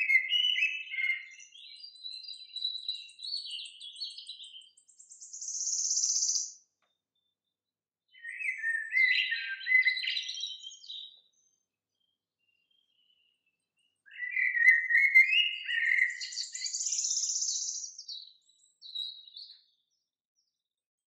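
A songbird singing in three bouts of quick chirping and warbling phrases, each a few seconds long, separated by pauses.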